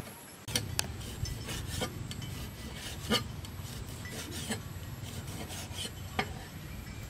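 Meat cleaver chopping pork on a wooden chopping board: irregular sharp knocks of the blade through meat into the board, over a steady low rumble.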